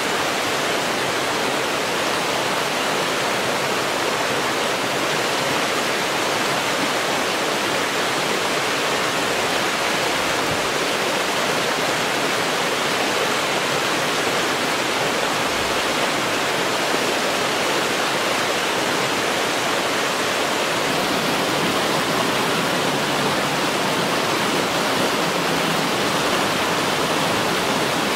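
Rocky river rushing over boulders and small cascades: a steady, even rush of water.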